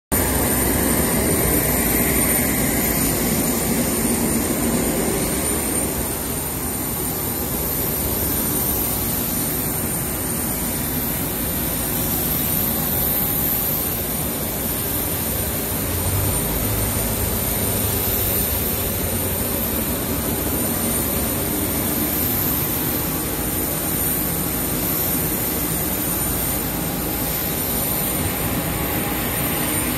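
Steady jet-turbine noise from a parked Airbus A318: a continuous rushing drone with a thin high whine over it, a little louder for the first few seconds.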